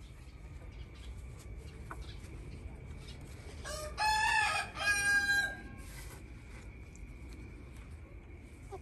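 A rooster crows once about four seconds in: one loud, drawn-out call of about a second and a half in two parts, dropping in pitch at the end.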